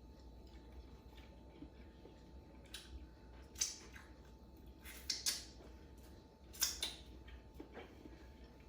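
Quiet eating sounds: a handful of short wet smacks and clicks from chewing and finger-licking, spread over several seconds.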